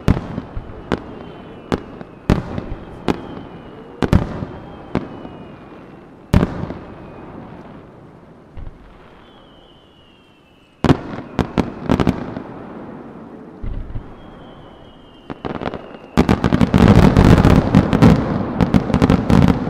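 Aerial firework shells bursting with sharp, echoing bangs about once a second, with faint whistles from rising shells. After a lull there is a cluster of bangs, then in the last few seconds a dense, rapid barrage of reports and crackling.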